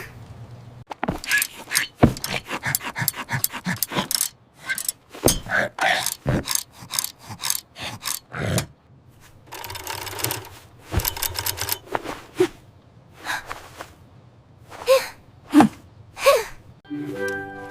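A string of sharp clicks, taps and knocks, with a quick run of clicks about ten seconds in, mixed with short gasps and grunts.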